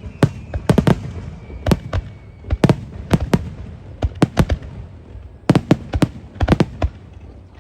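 Fireworks display: aerial shells bursting in a rapid, irregular string of sharp bangs and crackles.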